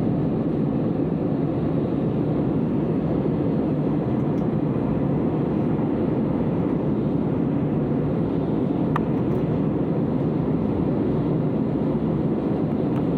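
Airliner engine noise, a steady low even rumble with no rise or fall. A single faint click comes about nine seconds in.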